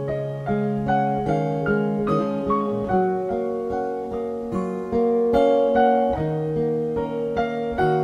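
Piano playing an instrumental break in a slow jazz ballad, a melody moving over sustained chords, with no singing.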